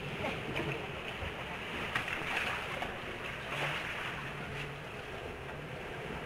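Ocean surf washing steadily against the rocks, a continuous rushing wash of waves heard from inside a rocky sea cave.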